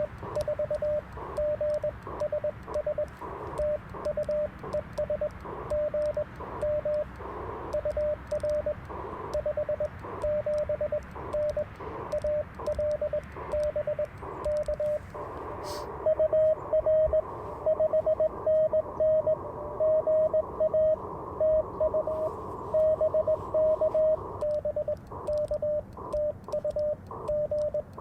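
Morse code (CW) from an Icom IC-705 transceiver: a single mid-pitched tone keyed into dots and dashes over radio band hiss. About sixteen seconds in there is a click, and the tone comes through a little louder after it.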